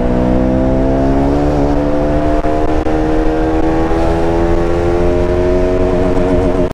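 KTM Duke 200's single-cylinder engine and exhaust pulling under steady acceleration, its note rising slowly and evenly, with a brief wobble in pitch about a second and a half in.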